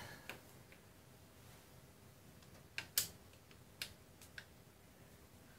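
Ratchet of a torque wrench clicking a few times, about four short clicks in the second half, as a 12 mm shock linkage nut is snugged down, over faint room tone.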